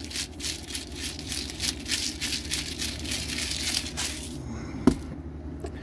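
Hand salt grinder twisted over a pan of beaten egg, a fast, even run of gritty grinding clicks that stops about four seconds in, followed by a single sharp knock.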